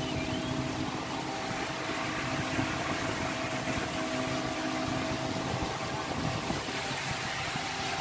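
A fishing vessel's engine and deck machinery running with a steady hum, a couple of held tones over a rushing noise.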